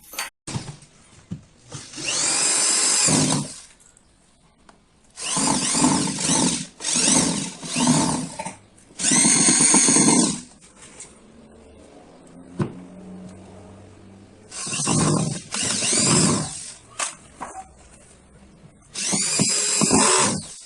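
Power drill driving screws into a speaker box, running in about eight short bursts of a second or so each, its whine speeding up and slowing down with each screw.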